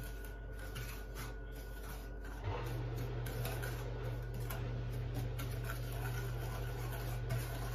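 Wooden spoon stirring sugar and water in an aluminium saucepan, a soft gritty scraping and ticking against the bottom of the pan. A steady low hum comes in about two and a half seconds in.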